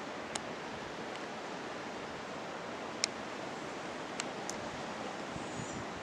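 Steady, even rushing outdoor background noise with a few faint brief clicks, the sharpest about three seconds in.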